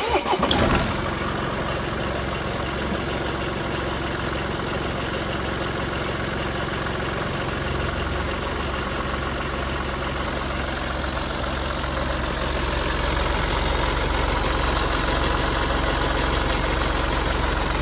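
BMW 116d diesel engine starting with a brief flare in revs, then idling steadily, a little louder from about twelve seconds in. The freshly replaced auxiliary belt and tensioner run without the squeak they were changed to cure.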